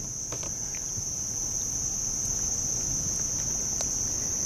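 Insects singing a steady, high-pitched drone, with a few faint drips and small splashes of water as a small tarpon is held in the shallows and released.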